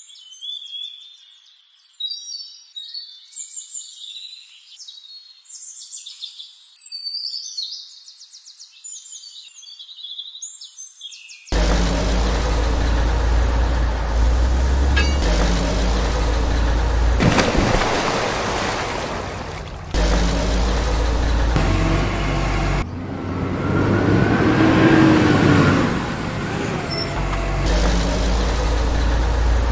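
Birds chirping for the first eleven seconds or so. Then a heavy truck engine sound starts suddenly and runs steadily in spliced sections that switch abruptly, with a brief rise and fall in engine pitch in the last third.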